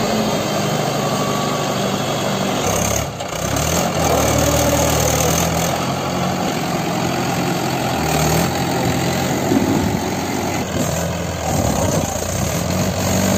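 Mahindra 575 DI tractor's four-cylinder diesel engine running steadily, pulling a trolley loaded with mud, with a short drop in loudness about three seconds in.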